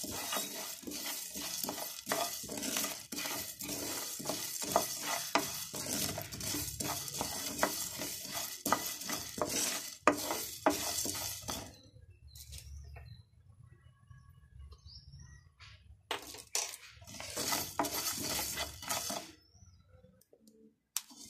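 Whole coriander and fennel seeds, with cinnamon and cloves, dry-roasting in a nonstick pan without oil while a wooden spatula stirs them. The sound is a scraping hiss full of small clicks as the seeds shuffle against the pan. It stops for a few seconds about halfway through, picks up again briefly, then stops near the end.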